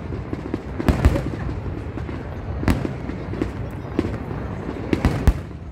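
Aerial fireworks shells bursting overhead: about six sharp bangs at uneven intervals, over a steady background noise.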